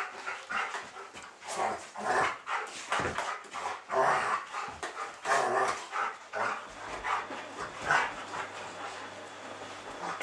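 Two giant schnauzers play-fighting, barking in short irregular bursts, loudest around the middle and dying down near the end.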